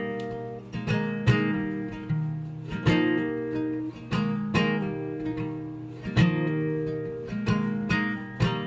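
Instrumental passage of a song on acoustic guitar: chords are strummed or picked about once a second and left to ring out between strokes.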